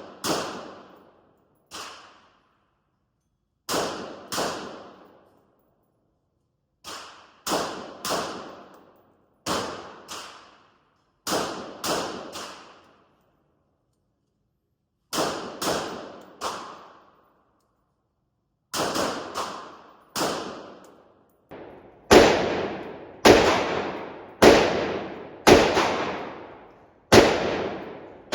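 Gunfire on an indoor range: about two dozen shots, mostly in strings of two or three roughly half a second apart, each with a short echoing tail. The shots get louder near the end.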